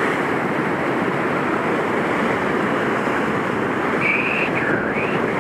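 Steady rush of breaking surf and white water, with wind on the microphone. A short high call is heard about four seconds in.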